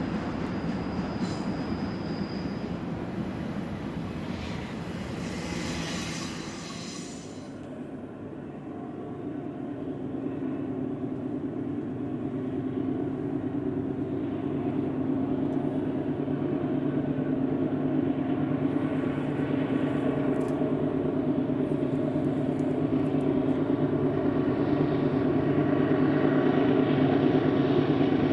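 Freight train wagons rolling past on the rails, then after a sudden cut the diesel engines of a three-locomotive consist on an approaching autorack train: a steady low drone that grows gradually louder as it nears.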